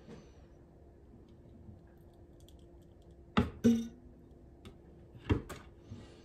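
Wooden wire soap cutter slicing a soap loaf: sharp clicks and knocks of the cutter's frame and arm, two close together about three and a half seconds in and two more about two seconds later.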